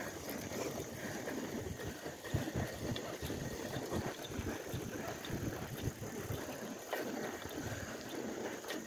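Wind rushing over the microphone, mixed with the rolling rumble of bicycle tyres on asphalt; the tyres have barely any air in them.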